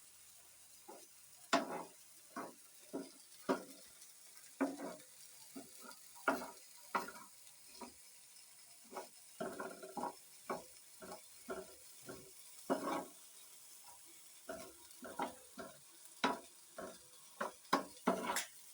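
A spoon stirring and scraping corn in a hot frying pan, in irregular strokes one to three a second, over a faint steady sizzle.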